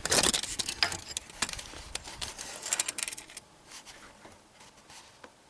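Handling noise: a quick run of clicks, light knocks and rustling that thins out after about three seconds to a few faint ticks.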